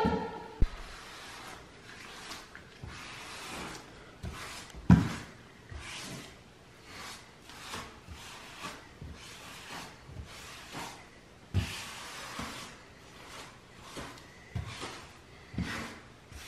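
Rubber grout float scraping grout across floor tiles in repeated rubbing strokes, with an occasional dull knock.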